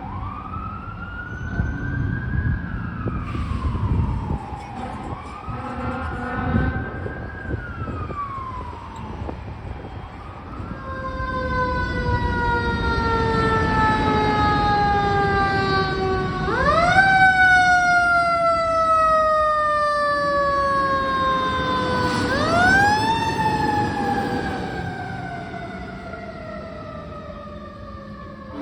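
Fire engine siren on an emergency response. For about ten seconds it wails, rising and falling roughly every four seconds. Then a siren tone winds down slowly in pitch, is run up sharply twice, and winds down again near the end.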